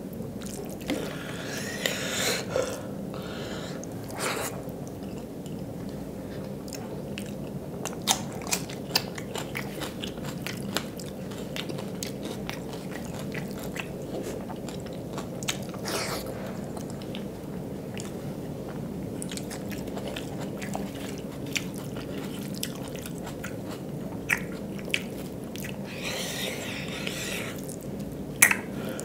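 Close-miked chewing of dal and rice, with wet mouth clicks and smacks scattered throughout. Twice, about two seconds in and near the end, a longer squelching rustle as fingers mix the rice and dal on the steel plate.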